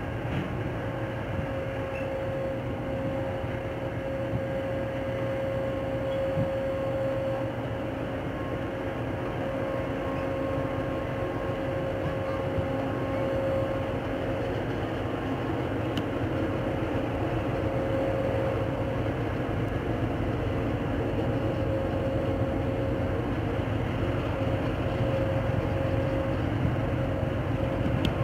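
Steady drone of a large single-boat purse-seine fishing vessel's engines as it passes close by, a low rumble with a steady whine, growing slowly louder.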